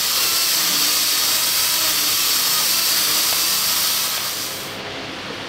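Compressed air hissing from a pneumatic tool in a steady rush for about four and a half seconds, then dropping away, as turret-ring bolts are run in.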